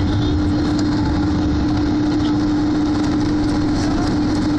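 Boeing 767-300ER jet engines running steadily at low power, heard from inside the cabin as a steady hum over a low rumble while the airliner taxis.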